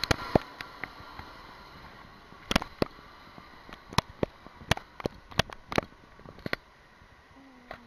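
Jet airliner climbing away after take-off, its engine noise a steady hiss that fades as the plane recedes. About a dozen irregular sharp clicks sound over it and are the loudest sounds.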